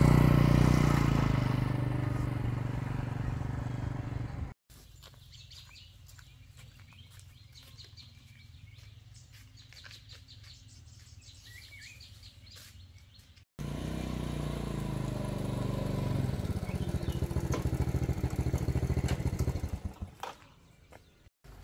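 A small engine running in two separate edited stretches, loudest at the start and fading over the first few seconds. Between them is a much quieter stretch of scattered clicks and faint chirps.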